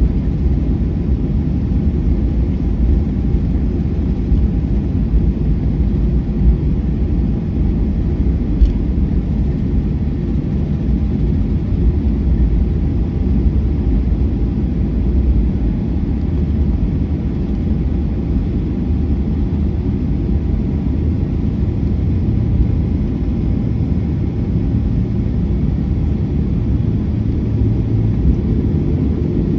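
Steady low rumble in the cabin of a Boeing 737-800 while it taxis, its CFM56-7B engines at idle, with a faint steady hum over it.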